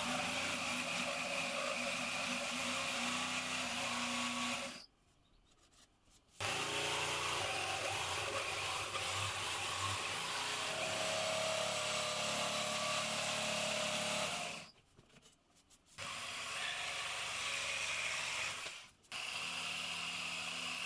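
Bosch jigsaw running and sawing along a curved line through a wooden board with a thin template on it. It stops briefly three times as the cut is repositioned.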